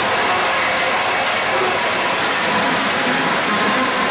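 Gold dredge working: a steady din of machinery and rushing water, with no distinct knocks or changes.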